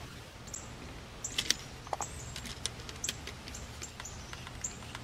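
Faint, scattered small metal clicks and taps of hand tools working a bare copper ground wire onto a GFCI outlet's ground screw terminal: wire strippers bending the wire, then a screwdriver at the screw.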